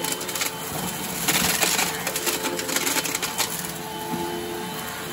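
Riccar 8905 vacuum cleaner running with a steady motor whine while debris crackles and rattles as it is sucked up.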